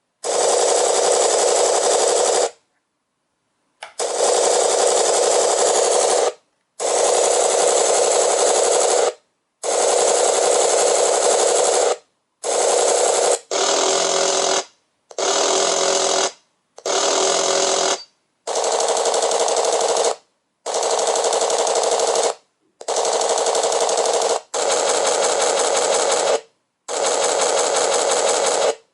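Electronic sound-effects module for RC models playing simulated machine-gun fire through its speaker: about a dozen rapid-fire bursts, each one to two and a half seconds long, separated by short silences.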